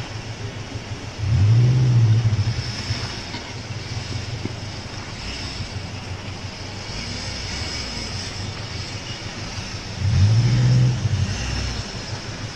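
Off-road 4x4's engine working under load while crawling over rocks and mud, revving hard twice, about a second in and again near the end, each rev rising and then falling in pitch.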